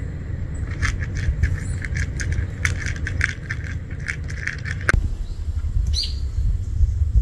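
A cat crunching dry kibble: a quick irregular run of sharp crunches for about four seconds, ending in one louder click. Under it, a steady low rumble.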